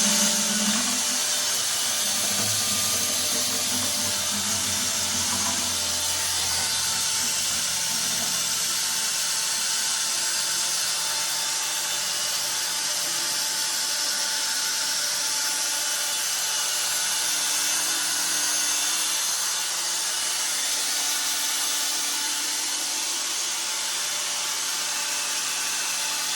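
Power drill running steadily at low speed, spinning the impeller of a drill-powered transfer pump that is pumping water out of a toilet tank.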